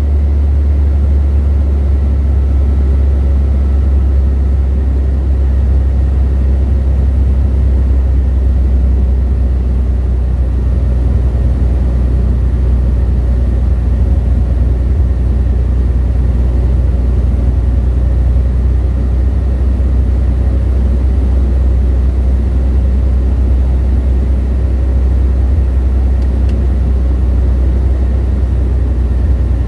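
A light aircraft's engine and propeller droning steadily in flight, heard from inside the cockpit, with a deep hum that holds level throughout.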